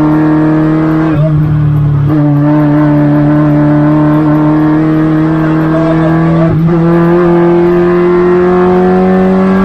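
Peugeot 106 race car's 1.4 litre engine pulling hard under load, its pitch climbing slowly and steadily. The note breaks off briefly about a second in and again about two-thirds of the way through, then carries on rising.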